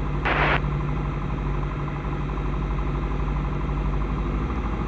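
Single-engine light aircraft's piston engine and propeller droning steadily in the cockpit, throttled back to about 1700 rpm for the descent in the landing pattern. A short hiss about half a second in.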